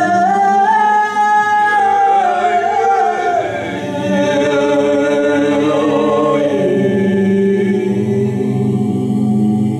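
Several voices singing an improvised a cappella chant: a high voice holds long notes and slides down in pitch about three seconds in, while low voices hold a steady drone beneath.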